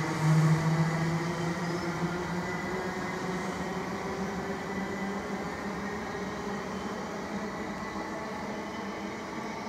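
South Western Railway Class 458 electric multiple unit drawing away along the line, a steady electric hum and wheel-on-rail rumble fading slowly as it recedes.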